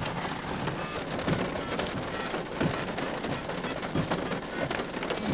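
Rain falling on a car's windows and body, heard from inside the car, a steady hiss with scattered sharp drop hits.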